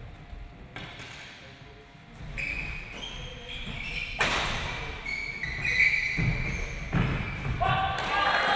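Badminton rally: sharp racket strikes on the shuttlecock and short squeaks of shoes on the court floor.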